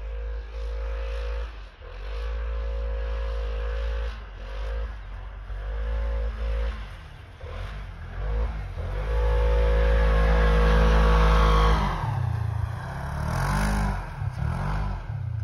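Polaris Ranger XP 1000 side-by-side's twin-cylinder engine revving in repeated bursts as it drives through snow, with a long, loudest pull about two-thirds of the way through. Near the end its pitch bends and wavers as it swings past and away.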